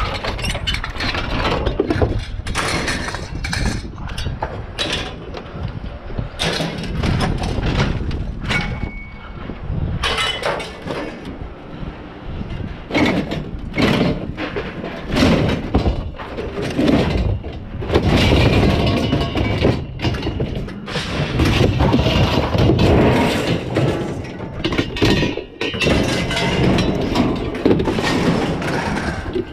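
Scrap being handled and broken up: continuous clattering, with many irregular knocks and crashes.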